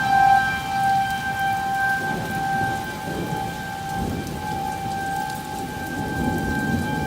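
Rain falling steadily while thunder rolls and rumbles, swelling twice. A tornado warning siren holds one steady tone throughout; it fades and swells.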